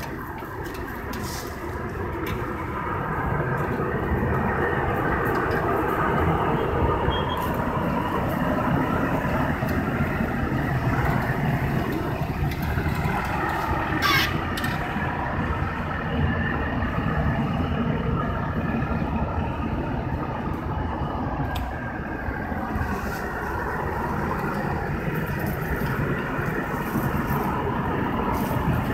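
Compact tractor engine running steadily while it pushes a HOAF Weedstar 100 gas-fired weed burner along the pavement, the burner alight. The sound grows louder over the first few seconds, and there is one brief sharp sound about halfway through.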